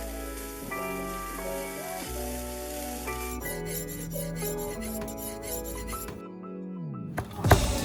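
Background music: sustained melodic notes over a bass line, with a steady hiss underneath. After a short break about six seconds in, a falling sweep leads into a loud, driving beat near the end.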